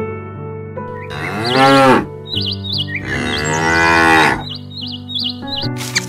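Two long cow moos, the second longer than the first, over steady background music with high warbling chirps between them.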